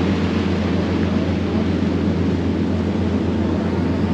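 Fishing boat's engine running steadily underway: a constant low drone mixed with the rush of the wake and wind.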